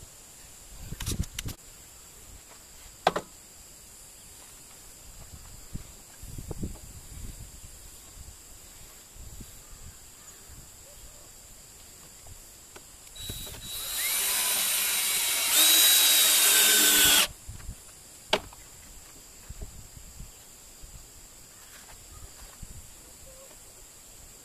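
Cordless drill running into wood for about four seconds, getting louder partway through before stopping abruptly. A few short knocks come earlier.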